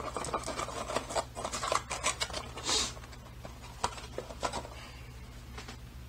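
Light rustling and small clicks of things being handled on a desk, thickest in the first three seconds, with a short hiss a little under three seconds in, then quieter.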